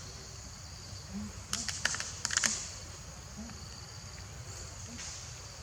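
A quick cluster of sharp clicks or taps, about eight in a second, starting about a second and a half in, over a steady high-pitched hum.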